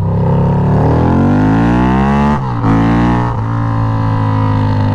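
Harley-Davidson V-Rod's V-twin through Ground Pounder drag pipes, accelerating hard: the revs climb for about two seconds, drop sharply at an upshift, climb briefly and drop again at a second shift, then hold steady at cruising speed.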